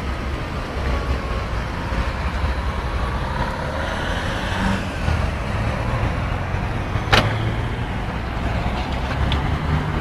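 Steady road-traffic and vehicle engine rumble on a city street, with one sharp click about seven seconds in.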